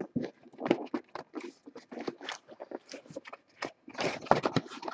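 Cardboard box packaging being rustled and scraped while its contents are worked out, an irregular run of short scrapes, rustles and small knocks.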